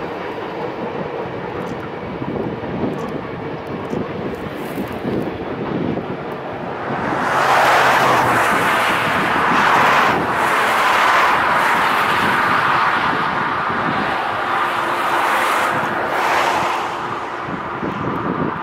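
A road vehicle passing by: a rush of tyre and engine noise that swells about seven seconds in and dies away near the end, over a steady background rush of river rapids.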